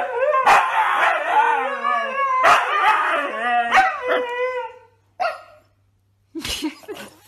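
Two huskies howling together, their overlapping voices gliding up and down in pitch, stopping about five seconds in. A few short, quieter sounds follow near the end.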